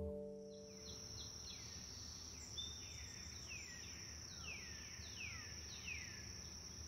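Faint garden ambience: a steady high-pitched insect trill, with a bird repeating short calls that slide downward in pitch, about one a second. Music fades out within the first half second.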